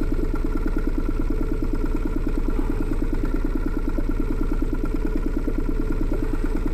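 Small boat's outboard motor idling steadily, an even, fast beat.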